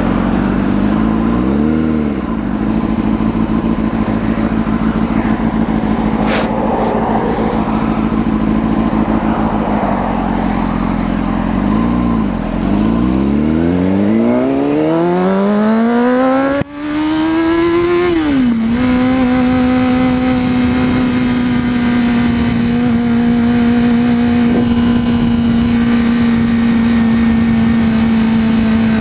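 Honda CBR600RR inline-four engine under way: it runs steadily with wind noise, then the revs climb for several seconds. The climb is broken by a brief cut at a gear change, and the engine settles into a steady higher note while cruising.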